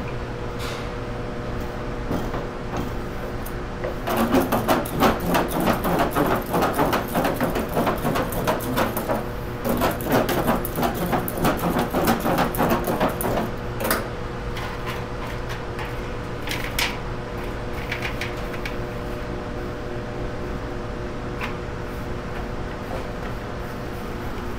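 Pie dough being rolled and worked by hand on a floured stainless-steel table: a busy run of quick knocks and rubs from a wooden rolling pin, from about four seconds in to about fourteen, then a few scattered taps as the crust is shaped. A steady hum of kitchen equipment runs underneath.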